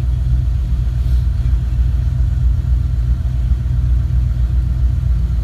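Ford 351 Windsor V8 in a 1964 Mercury idling steadily while it warms up from a −20 °C cold start, its idle speed held by the Holley Sniper EFI's idle air control.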